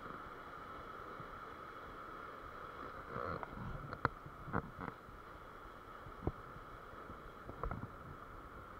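Surf washing steadily over a rocky, stony shore, with a few sharp knocks and taps from about three seconds in.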